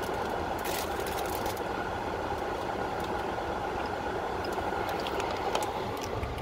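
Steady hum and hiss of a running car heard inside the cabin, with a few faint clicks from chewing a donut about a second in and again near the end.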